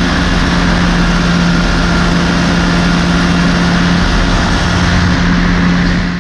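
Pegasus XL-SE flexwing microlight's two-stroke engine and propeller running steadily in flight, one constant engine tone under a loud rush of air noise.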